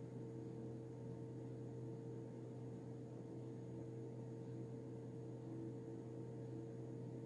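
Steady low hum with a faint hiss, a constant room tone with no distinct strokes or knocks.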